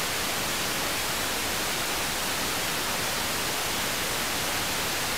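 Analogue television static: a steady, even hiss of white noise, as from a CRT set tuned to no channel.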